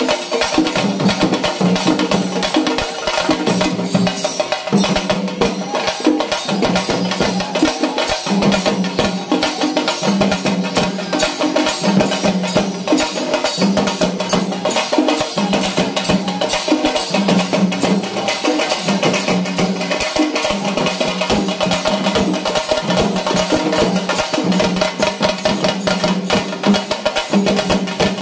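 Loud, fast percussion-led traditional music: dense rapid drumming over a low melodic phrase that repeats about once a second.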